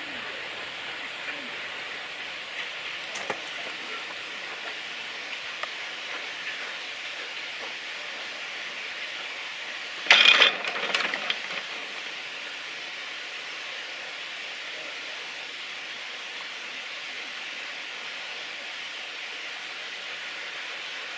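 LNER K1 2-6-0 steam locomotive No 62005 hauling a train of carriages away, with a steady hiss. About ten seconds in there is a sudden loud burst lasting about a second.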